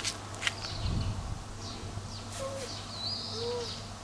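Birds calling: one high call that rises and then holds, about three seconds in, with two short low arched notes shortly before it. A few light rustles, from the cat rolling in the grass, over a steady low hum.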